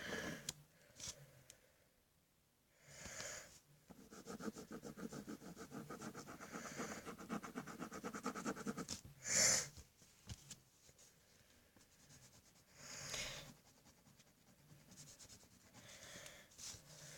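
A pencil or marker colouring on paper in fast back-and-forth strokes, with a few quiet breaths close to the microphone.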